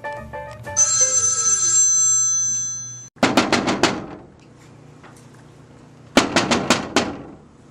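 Telephone bell ringing: a long ring that cuts off about three seconds in, then two short runs of rapid bell strikes about three seconds apart.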